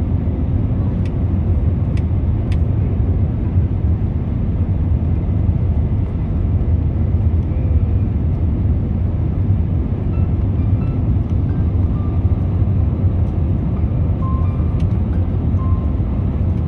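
Cabin noise inside an Airbus A320neo-family airliner on final approach with its flaps extended: a steady, loud, low rumble of the engines and the rushing airflow.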